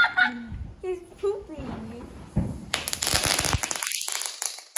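A lit ground firework crackling: a dense run of rapid sharp pops that starts about halfway through, lasts a little over a second at full strength and then fades out.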